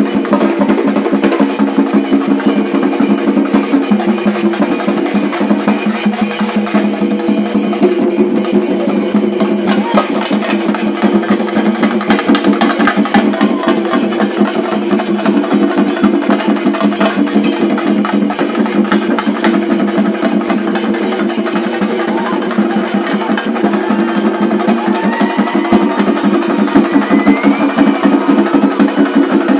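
A Shinkarimelam ensemble of chenda drums and ilathalam cymbals playing a loud, fast, driving rhythm, the sticks striking in a dense continuous stream. A few rising whistles sound over the drumming near the end.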